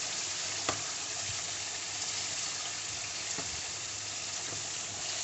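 Chicken and yogurt sizzling as they fry in a karahi and are stirred, a steady frying hiss with a couple of light knocks.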